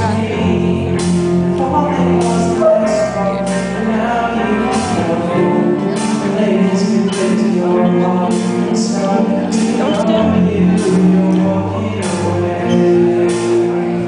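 Rock band playing live: sustained chords over drums, with cymbal hits keeping a steady beat about twice a second.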